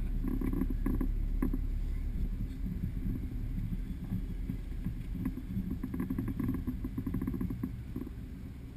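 Jeep Wrangler JK's 3.8-litre V6 running low and steady as the Jeep crawls over a rough dirt trail, with bursts of rattling and knocking from the body and loose gear over bumps, heard through a dash-mounted camera.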